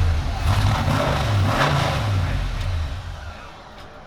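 Supercharged engine of a NASCAR-chassis car with a Dodge Charger body, running loud with rough low rumble and a few rev blips, then dying away about three and a half seconds in.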